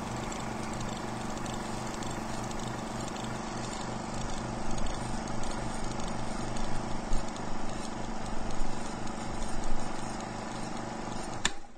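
Ride-on lawn mower's small engine running with a low, even pulsing, getting louder and more uneven from about four seconds in, then cutting off suddenly near the end.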